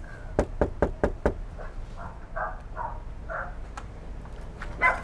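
Knuckles knocking on a house's front door: a quick run of about five knocks about a second in, then a couple of single knocks later.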